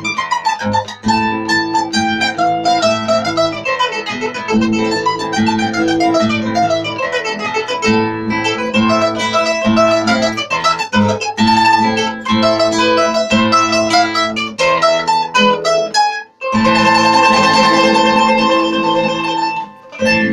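Bowl-back mandolin and classical guitar playing a traditional tarantella: quick picked mandolin runs over guitar chords. A brief break about sixteen seconds in is followed by a long, held closing chord and a final strike.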